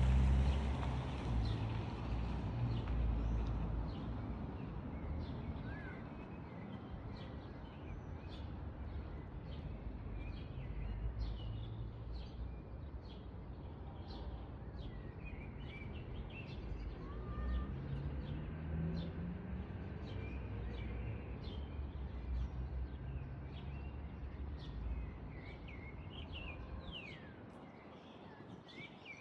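Small birds chirping, many short high chirps scattered throughout, over a steady low rumble that fades near the end.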